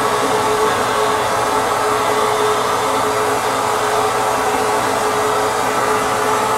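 Vapor blasting nozzle spraying a water-and-abrasive slurry onto an aluminum rear hub inside a blast cabinet: a loud, unbroken hiss with a steady tone underneath.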